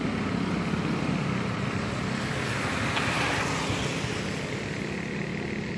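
A motor vehicle going by on the road: a steady engine hum with tyre noise, swelling about halfway through.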